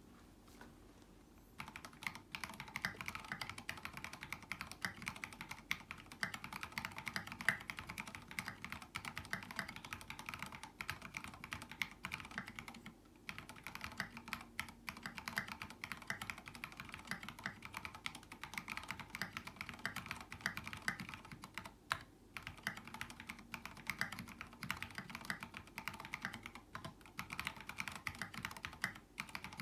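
Steady typing on a mechanical keyboard with lubed linear Cherry MX Black switches on 55 g springs, a brass plate and SA-profile keycaps: a fast run of clacks that starts about a second and a half in, with brief pauses about a third of the way in, about two thirds of the way in and near the end.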